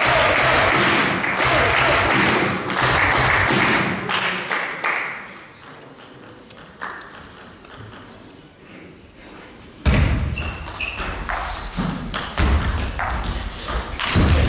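Crowd chatter and applause in a sports hall fade out over the first few seconds. About ten seconds in, a table tennis rally starts: the ball knocks sharply and quickly off the rackets and the table, with short high squeaks from the players' shoes on the court floor.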